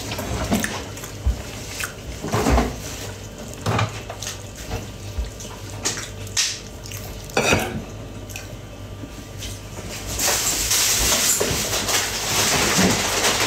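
Kitchen clatter: dishes and utensils knocked and set down, with scattered sharp clicks. Near the end comes about three seconds of water running or being poured.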